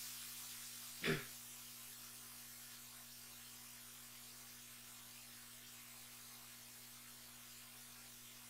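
Faint, steady electrical mains hum with hiss, with one short sound about a second in.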